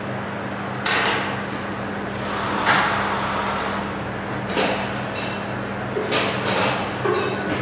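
Automatic pail denester running with a steady hum, a sharp clank about a second in as the stack of plastic pails is tilted over onto the separating track, then a run of knocks and plastic clatters in the second half as pails are handled.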